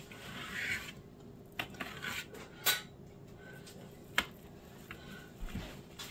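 A knife cutting a slice from a baked meatloaf: a soft scraping through the loaf, then a few sharp clinks of metal utensils against the dish, the sharpest about four seconds in.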